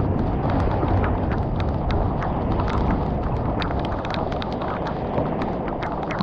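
Heavy thunderstorm rain pouring steadily, with many sharp drops tapping close by.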